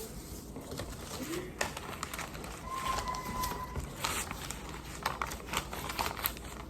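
A pet bird calling softly, with a short held whistle about three seconds in among light clicks.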